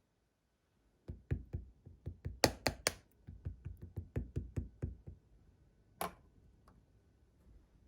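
Slime being pressed and poked by fingers: after a second of quiet, a quick run of soft squishy thumps and sharp clicking pops, about four or five a second, then one lone sharp pop a little later.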